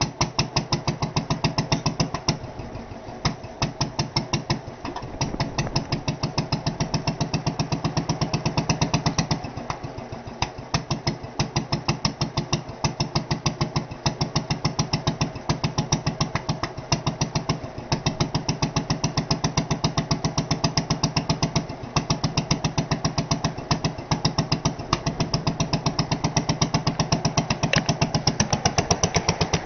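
Lister F-type 4 hp single-cylinder spark-ignition stationary engine with magneto ignition, catching at the start after hand cranking and then running with a rapid, even firing beat. The beat grows louder and softer in spells.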